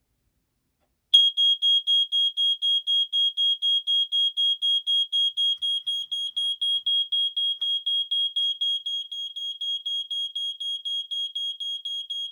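BRK 2001 smoke alarm sounding: a single high-pitched tone beeping rapidly, about four pulses a second, starting about a second in and a little quieter in the second half.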